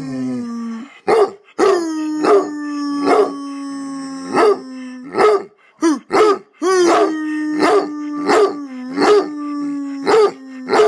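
A hound dog barking over and over, roughly one bark every 0.7 seconds, while a man holds a long steady howl beneath the barks. The howl breaks off about five seconds in and starts again a second or so later.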